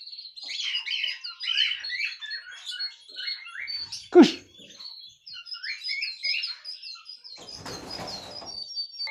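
Young male canary singing: a fast, twittering run of short chirps and trills. A single loud, sharp sound cuts in about four seconds in, and a short burst of rustling comes near the end.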